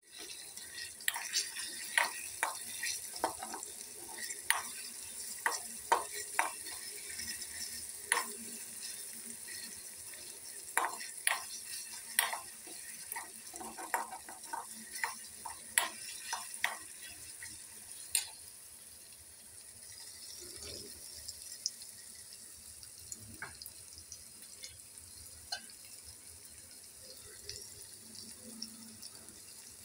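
Steel spoon scraping and knocking against a metal kadai while stirring paneer cubes frying in oil, over a steady sizzle. The spoon strikes come thick and fast for the first half, then thin out to a few.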